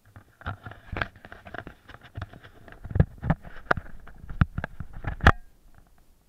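Fat bike ridden over a snowy trail: irregular knocks and rattles as it bumps along, over a rough steady noise of the tyres on snow, with the loudest thumps about three seconds in and just after five seconds.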